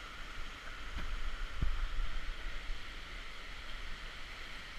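Steady rush of flowing water in a canyon stream, with two low thumps about a second and a second and a half in.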